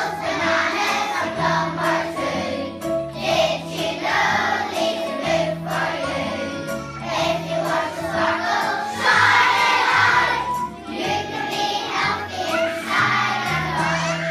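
A group of children singing a song together over an instrumental accompaniment with a steady moving bass line.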